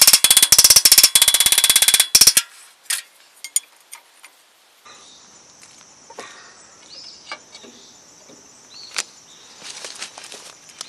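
A rapid run of hammer blows on the Massey Harris 30's power take-off shaft housing, ringing metal on metal, lasting about two seconds, struck to drive the shaft loose from the transmission. After a pause, a steady high insect drone sets in about five seconds in, with a few scattered metallic knocks and clinks as a pry bar works on the shaft.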